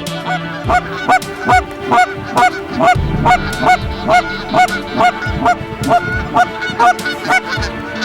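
Goose call blown in a fast, very regular run of Canada goose honks and clucks, about two to three a second, calling incoming geese into the decoys.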